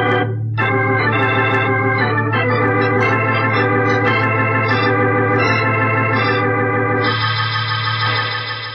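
Organ music bridge marking a scene change. A steady bass note is held under a run of changing chords, ending on a long held higher chord that fades out near the end.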